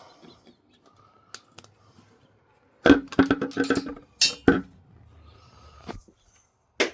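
Metal tools and engine parts clanking during a car engine teardown: a quiet stretch with a few light clicks, then a burst of sharp, ringing metallic clanks about three seconds in, and a couple more clicks near the end.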